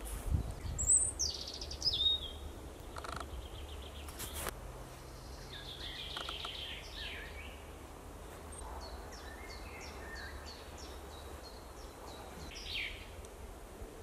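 Spring forest birdsong: several birds calling and singing, with a falling high whistle about a second in, chirping runs in the middle and a quick run of high repeated notes later, over a steady low rumble. A few sharp clicks sound in the first half.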